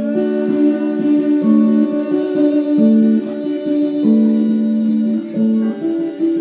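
Electric guitar played without vocals: a slow picked melody of single notes that ring on over one another.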